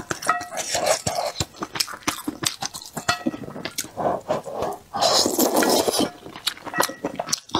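Close-miked eating sounds: wet chewing and mouth clicks on soup dumplings, with wooden chopsticks clinking against the metal bowl in short rings. About five seconds in comes a loud slurp of broth from the bowl.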